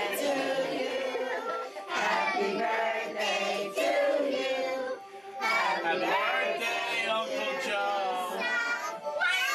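A group of people, children's voices among them, singing a song together in unison, in long phrases with short breaths between them.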